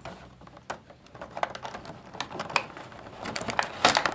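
Scattered light plastic clicks and rattles as a toy figure is worked loose from its clear plastic packaging tray, its rubber bands being cut and pulled off. A quicker cluster of sharper clicks comes near the end.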